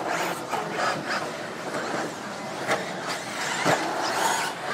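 Electric radio-controlled stadium trucks racing on a dirt track: motors whining and tyres running over the dirt, with a sharp knock about three-quarters of the way through.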